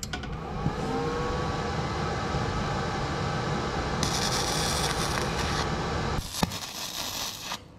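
Animated logo intro sound effect: a steady, dense rumbling swell with a few gliding tones early on, joined about four seconds in by a bright sparkling hiss, then a sharp hit near the end before it fades out.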